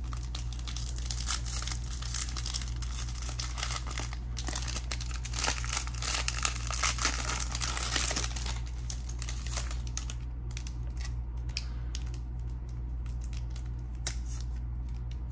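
Foil wrapper of a trading-card pack crinkling and being torn open by hand, a dense irregular crackle that thins out after about ten seconds, over a steady low hum.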